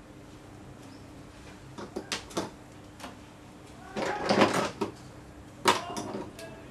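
A few sharp knocks about two seconds in, a longer clattering rattle around four seconds, and one more sharp knock near the end, over a faint steady hum.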